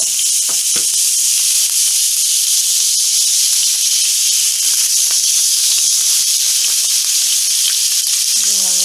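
Seasoned chicken breast strips frying in hot olive oil in a frying pan: a loud, steady sizzle.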